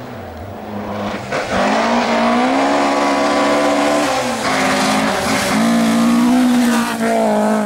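Rally car engine at full throttle, building to loud about two seconds in, with a couple of brief drops in pitch midway as it changes gear, then holding high before cutting off suddenly.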